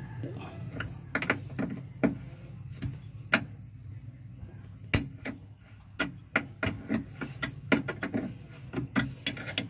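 Irregular sharp metallic clicks and knocks of a hand tool on a bolt at the clutch master cylinder as it is worked loose, over a low steady hum.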